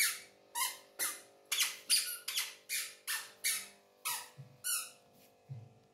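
A toddler's squeaky shoes squeaking with each step, about two short high squeaks a second, stopping near the end.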